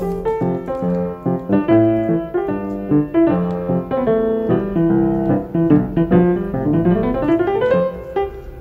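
Solo piano background music, a light melody of separate notes with a rising run of notes near the end.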